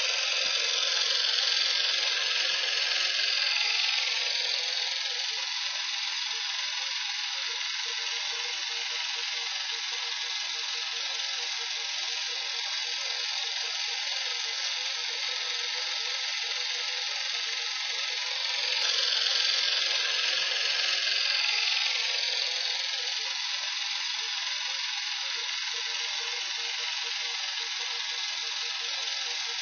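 Film projector running: a steady mechanical whir with a fast, fine clatter, swelling louder near the start and again about twenty seconds in.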